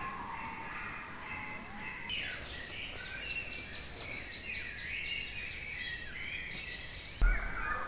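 Several songbirds singing together, a busy mix of high chirps and trills that changes abruptly about two seconds in. Near the end comes a sudden low thump, the loudest sound.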